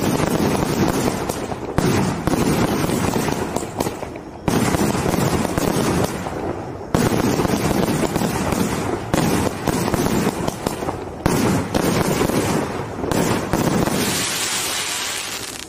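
A 49-shot, 500-gram NishiPyro consumer fireworks cake firing: rapid shots launching and bursting overhead with dense crackling between, a fresh volley starting about every two seconds. Near the end the shots stop and a hissing sizzle fades away.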